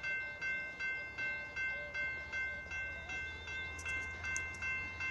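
Railroad crossing bell ringing steadily, just under three strokes a second, each stroke a bright ringing tone that dies away. It is the crossing's warning that a train is approaching.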